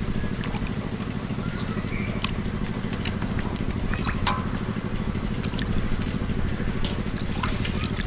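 Water splashing and sloshing in a steel bowl as raw chicken legs are rinsed and rubbed by hand, with short drips and splashes throughout. Under it runs a steady, low, evenly pulsing drone like a small engine.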